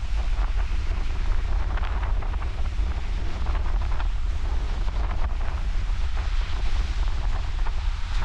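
Wind buffeting the microphone with a heavy, unsteady low rumble, over the continuous hiss and wash of ocean surf.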